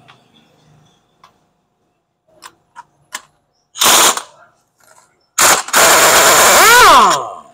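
Pneumatic impact wrench hammering at the top bolt of a Ford Fiesta front shock absorber to undo it: a short burst about four seconds in, then a longer burst of nearly two seconds that ends with the air motor's whine falling in pitch as it winds down. A few light clicks of the socket and tool being handled come before.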